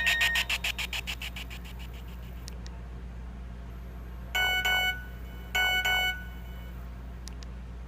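Nokia 2310 mobile phone speaker playing its stock electronic tones. A rhythmic ringtone fades out over the first second or so. A short chord-like beep then sounds twice, about a second apart, each about half a second long, over a steady low hum.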